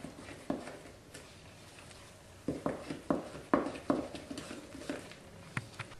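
Wooden spoon stirring flour into a yeast batter in a mixing bowl: soft scraping with irregular knocks of the spoon against the bowl, several in quick succession around the middle.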